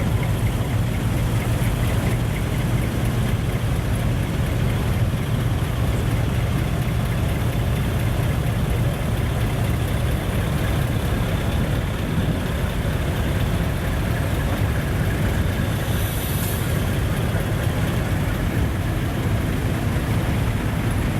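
Heavy diesel truck engine idling steadily, with a short high hiss about three-quarters of the way through.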